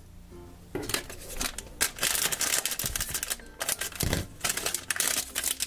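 Plastic foil blind bag being torn open and crinkled by hand, a dense irregular crackling that starts about a second in, with a soft bump about four seconds in.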